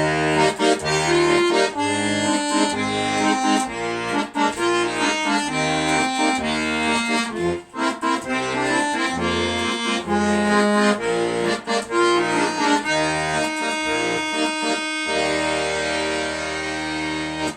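Solo instrumental music: a melody over alternating bass notes and chords, ending on a long held chord for the last couple of seconds before it stops.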